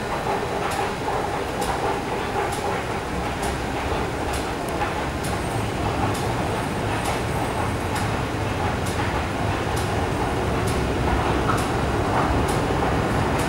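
MTR Tsuen Wan Line train running in the tunnel at the station, a steady rail rumble that slowly grows louder as it draws in. A short, regular click comes about once a second over it.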